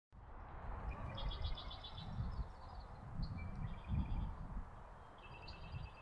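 Small songbirds singing: three quick trilled phrases of rapid high notes, with an irregular low rumble underneath.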